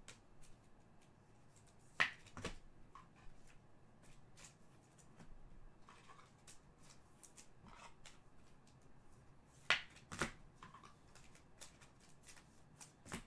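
Panini Prizm trading cards being handled and flipped through: quiet sliding and faint ticking, with pairs of sharp card snaps about two and ten seconds in and another near the end.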